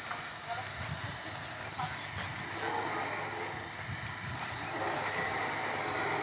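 Truck-mounted borewell drilling rig running, a steady high hiss over a low engine rumble.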